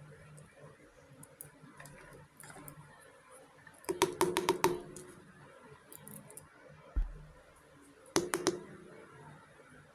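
Small pieces of miniature toy kitchenware being handled and set down, clicking against each other: a quick run of five or six clicks about four seconds in, a single dull thump near seven seconds, and three or four more clicks just after eight seconds.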